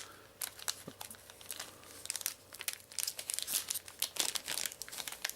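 A small perforated booster-pack package being torn open along its perforations and handled, with irregular crinkling, tearing and small clicks.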